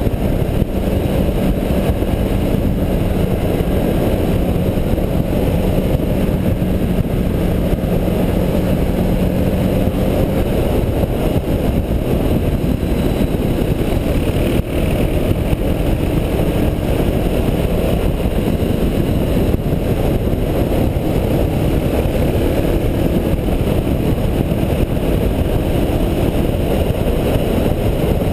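Suzuki DR650's single-cylinder four-stroke engine running at road speed, heard under heavy wind rush on the bike-mounted microphone. The engine note holds steady for about the first ten seconds, then changes pitch as the throttle varies through the bends.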